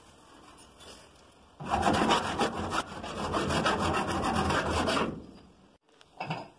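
A flat body file rasping across lead filler on a steel car body panel, shaving the lead level with the panel's curve. It starts about a second and a half in, after a quiet start, runs for about three and a half seconds, and then fades out.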